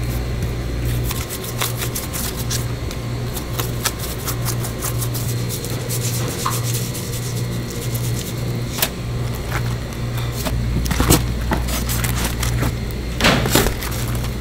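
Gloved hands handling grilled fish, giving scattered taps, clicks and soft scrapes, with a few louder knocks near the end, over a steady, evenly pulsing low hum.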